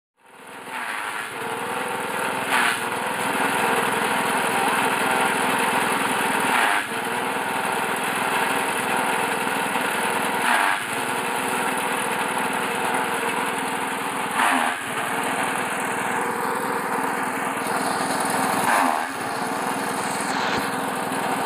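Engine-driven forage chopper running steadily. About every four seconds a louder burst of chopping comes as a bundle of stalks is fed into the blades, and the engine dips briefly under the load.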